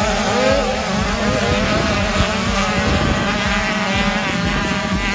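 Several 85cc two-stroke motocross bikes racing, their engines revving up and down with the notes overlapping.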